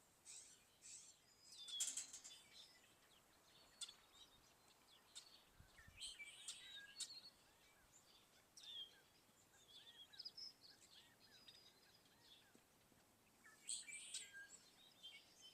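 Faint dawn chorus of several birds chirping and trilling. In the middle, one bird repeats a series of short arching notes about two or three times a second.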